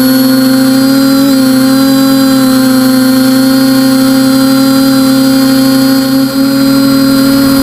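TBS Discovery quadcopter's NTM brushless motors and propellers whining at a steady pitch in flight, the whine briefly dipping in level about six seconds in.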